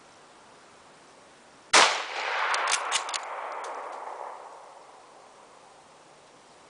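A single shot from a 1941 Mosin-Nagant M91/30 rifle (7.62×54R) about two seconds in. Its report rolls away through the woods and fades over two to three seconds, with a few sharp metallic clicks in the tail.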